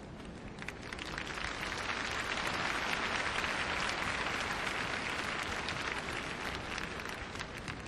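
Arena audience applauding a figure skater, swelling about a second in and dying away near the end.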